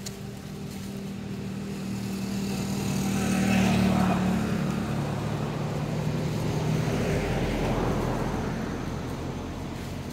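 Engine noise of passing motor vehicles, growing louder to a peak about four seconds in, rising again near eight seconds, then fading.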